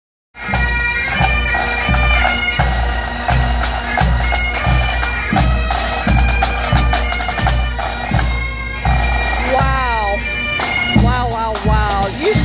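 Pipe band playing on the march: bagpipes sounding a tune over their continuous drone, with snare drums and a bass drum beating a steady marching time of about three beats every two seconds.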